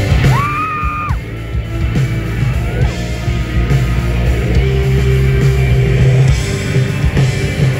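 Live rock band playing through a PA, with electric guitars, drums and heavy bass. About a third of a second in, a single high note slides up and is held for under a second before cutting off.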